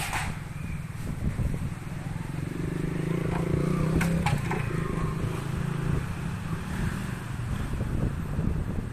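A motor vehicle's engine hum that grows louder through the middle and then fades, with a sharp knock near the start and another about four seconds in.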